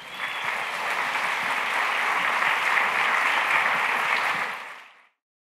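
Audience applauding. It swells at the start, holds steady, then fades and cuts off abruptly near the end.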